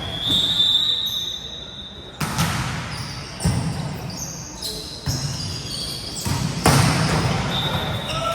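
A high, steady whistle for about two seconds, then a volleyball struck four times in quick succession during a rally, the hits about one and a half seconds apart and echoing in a large sports hall.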